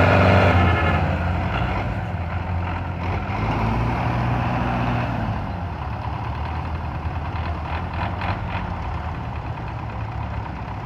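Tractor diesel engines running hard under load, pulling a loaded sugarcane trolley through mud. The loudest engine eases off about a second in and a lower, steady engine drone carries on, with a few light rattles later on.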